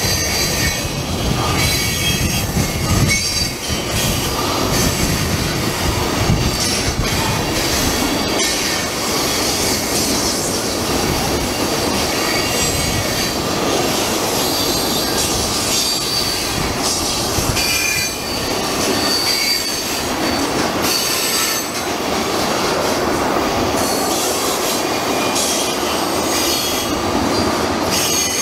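Ethanol tank cars of a freight train rolling past: steady rumble and clatter of steel wheels on rail, with high wheel squeal coming and going.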